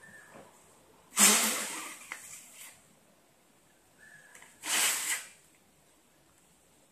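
Two puffs of breath blown into the opening of an origami paper balloon to inflate it: a longer one about a second in and a shorter one about four and a half seconds in.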